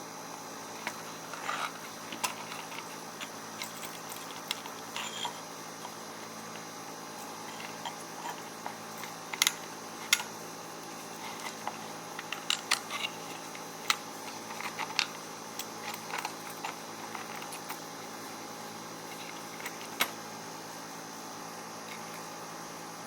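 Scattered light clicks and taps from small parts and tools being handled, over a steady background hum. The sharpest clicks come at about nine and a half, ten and twenty seconds in.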